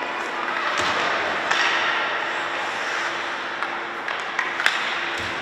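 Ice hockey play in an echoing arena. Several sharp clacks of sticks hitting the puck and the ice, about five in all, come over a steady hiss of skates and rink noise.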